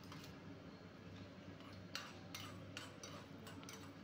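Faint, scattered clicks of spices dry-roasting in a small steel tempering ladle, stirred with a metal spoon: mustard seeds, fenugreek seeds and dried red chillies ticking against the steel, with the clicks coming several a second from about two seconds in.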